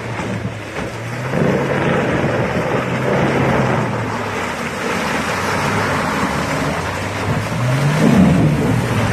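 Off-road vehicle engine running under load with a broad rush of driving noise from tyres and terrain. The revs rise and fall again briefly near the end.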